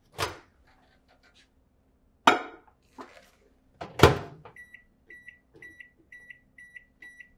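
Microwave oven door knocking open and shut, the shutting knock the loudest, then about ten short, even keypad beeps as the cooking time and power level are entered.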